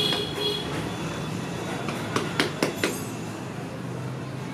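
Hands patting and slapping a round of dough flat on a floured table, with a run of four quick slaps about two seconds in, over a steady low background rumble.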